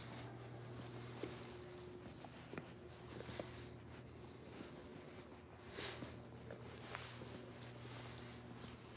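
Quiet room tone of a large empty enclosed mall: a steady low hum, with a few soft scattered taps of footsteps on the tile floor and a brief rustle about six seconds in.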